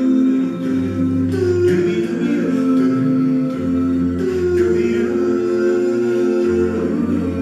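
Male a cappella vocal group singing wordless sustained chords in close harmony, with a low bass voice under the upper parts and the chord changing every second or two.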